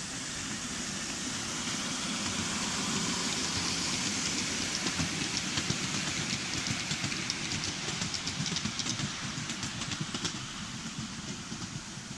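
Miniature railway train passing close by: its wheels rumble on the small track, with a quick run of clicks over the rail joints as the carriages go past, then the sound eases off as it moves away.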